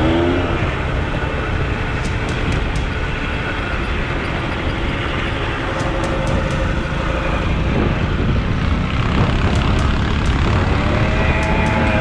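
Motor of a mini 4x4 monster-truck go-kart running as the kart drives over grass and dirt, its pitch rising near the end as it speeds up.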